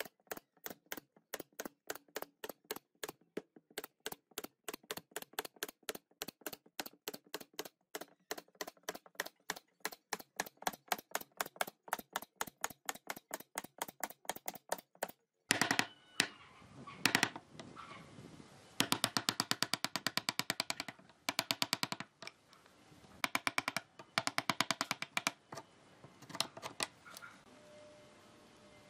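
Pneumatic brad nailer firing nails into pine boards in steady succession, a sharp snap about three times a second, for roughly the first half. After that come bursts of rapid clicking.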